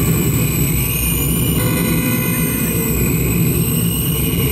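Live harsh noise music from electronic gear: a dense, steady low rumble with thin high whining tones above it, one bending up and back down about a second in.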